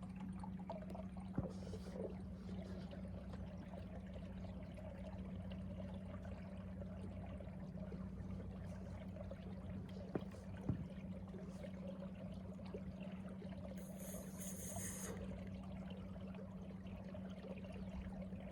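Boat motor humming steadily at trolling speed, with water trickling along the hull.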